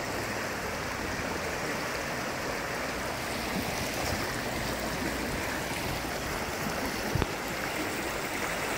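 Shallow river rushing steadily over a rocky bed, rock ledges and stones. A brief low bump about seven seconds in.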